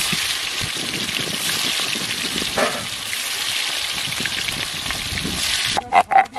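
Pieces of garfish sizzling as they deep-fry in hot oil in a wide metal kadai, a steady hiss. About six seconds in it switches to the rhythmic back-and-forth scraping of a stone roller on a flat grinding stone (sil-batta).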